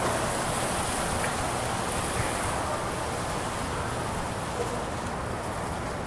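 Steady rushing outdoor background noise of wind and street traffic, even and unbroken.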